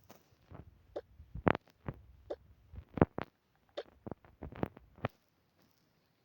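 About a dozen scattered small taps and clicks of objects being handled, stopping about five seconds in.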